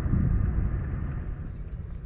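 Wind buffeting the microphone: an uneven low rumble with a hiss behind it, loudest near the start and easing off toward the end.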